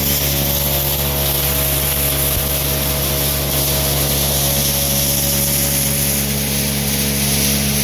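Workshop machinery running steadily: an even motor hum with a hiss over it, unchanging throughout.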